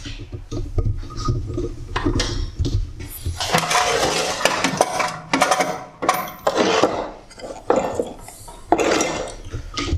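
Handling noise on a workbench as a work light and its cord are set up: irregular clinks, knocks and rustling of objects being moved and set down.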